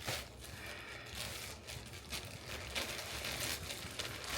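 Plastic packaging and clothes rustling and crinkling in uneven bursts as they are handled.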